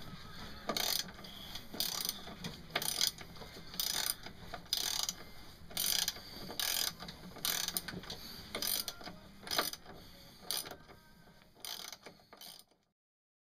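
Repeated mechanical clicking strokes from hand work on the mast step, a little over one stroke a second, cutting off suddenly near the end.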